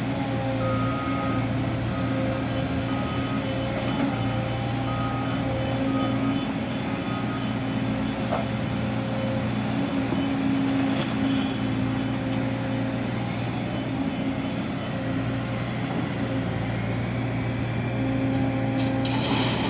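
Heavy diesel construction machinery engine running steadily, a continuous low drone with no sharp knocks or breaks.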